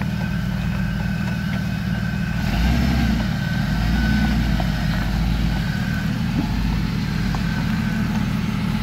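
Jeep Comanche rock crawler's engine running at low revs under load as it crawls over boulders, getting louder for about three seconds partway through as the throttle comes up, then easing back.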